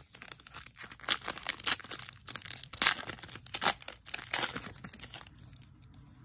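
Foil trading-card pack wrapper being torn open and crinkled by hand, a run of quick crackles and rips that dies away about five and a half seconds in.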